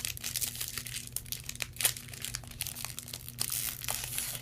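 Foil wrapper of a Pokémon trading-card booster pack crinkling and tearing as it is opened by hand, with a run of irregular crackles and a sharper snap just under two seconds in.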